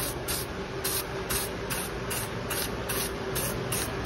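Rattle can of black truck bed liner coating spraying as it is swept back and forth under a car, its hiss swelling and fading about three times a second. A faint steady hum runs underneath.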